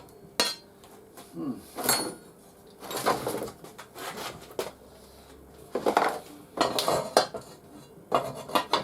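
Steel clanking and knocking in irregular bouts as a freshly welded steel piece is worked to bend it.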